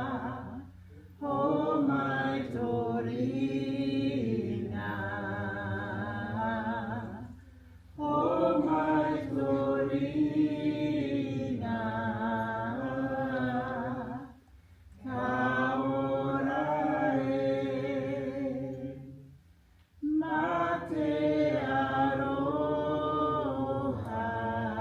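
A group of voices singing a Māori waiata without instruments, in long phrases broken by short pauses for breath.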